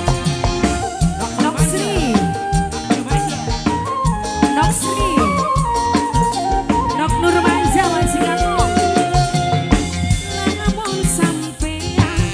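Live Cirebon dangdut band playing an instrumental passage: a lead melody holds long, slowly stepping notes over a steady pattern of drums and bass.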